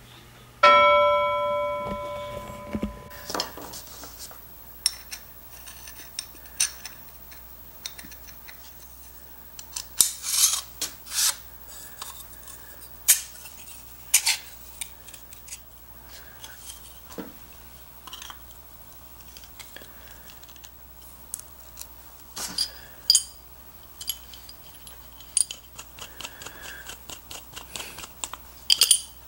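Small steel and cast-iron parts of a Stanley No. 4C hand plane clinking and tapping against each other and the bench as they are handled and fitted, in irregular sharp clicks. About a second in, a bell-like ringing tone with several pitches fades over two seconds.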